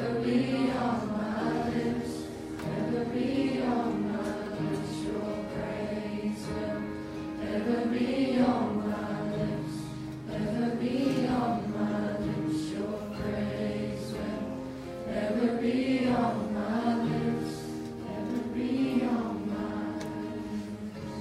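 A group of voices singing a gospel worship song together over instrumental accompaniment, with sung phrases rising and falling over steady held low notes.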